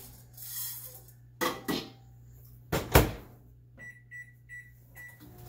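LG over-the-range microwave being set: a few knocks and clicks, the loudest about three seconds in, then four short beeps from the keypad as the cooking time is entered, all over a steady low hum.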